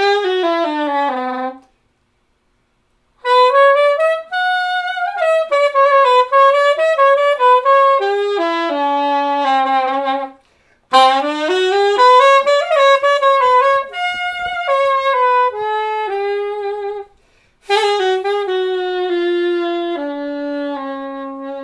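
Curved B-flat soprano saxophone playing a slow melody in four phrases with short breaths between them, beginning with a brief falling note and ending on a long held low note. The player says this curved soprano's intonation is poor, with many notes flat.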